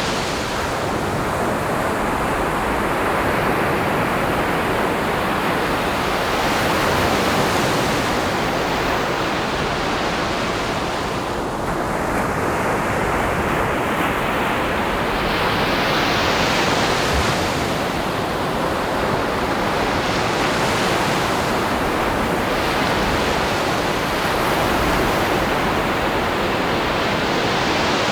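Ocean waves breaking on the shore: a continuous rushing surf whose hiss swells and fades every few seconds as each wave comes in.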